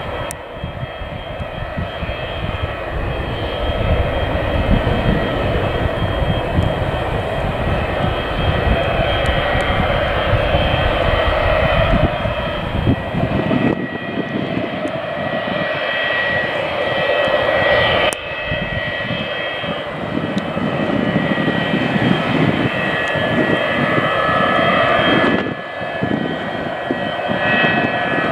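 Boeing 727's three rear-mounted Pratt & Whitney JT8D turbofans running at taxi power, a steady jet roar with high whistling tones, growing louder over the first few seconds.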